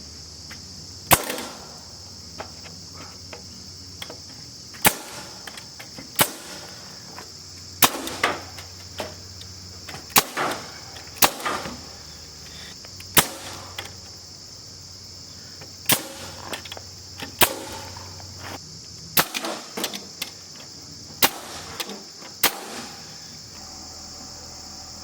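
Sharp, loud knocks on wood at irregular intervals, about a dozen or more, one to two seconds apart, from work on a timber frame, over a steady high trilling of insects.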